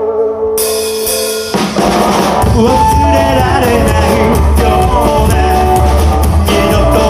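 Rockabilly band playing live: a held guitar chord rings, a cymbal crash comes in about half a second in, and the drums and bass join at full tempo about a second and a half in.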